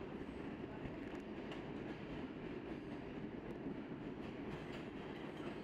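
New York City subway train running on the track, a steady rumble of wheels and rails with a few faint clicks.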